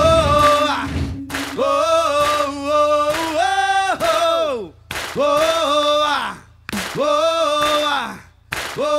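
Several male voices singing together in harmony without instrumental backing, in short sung phrases with brief breaks between them, each phrase ending in a falling slide.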